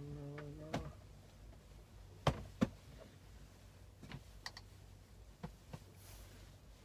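Scattered sharp clicks and knocks of things being handled in a motorhome's small sleeping area. The two loudest come close together about two seconds in, and more follow around four and five and a half seconds, over a low steady hum. A brief voice sound is heard at the very start.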